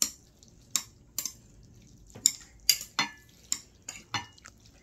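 Metal cutlery clinking and scraping against a ceramic pasta bowl as curry-coated pasta is stirred and mixed. About nine irregular sharp clinks, a few ringing briefly.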